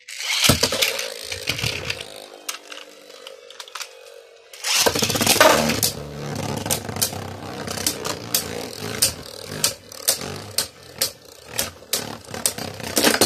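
Beyblade Burst tops launched into a plastic stadium, spinning and scraping against the floor. A loud launch comes at the start, and a second, busier stretch begins about five seconds in, filled with repeated sharp clicks as the tops strike each other.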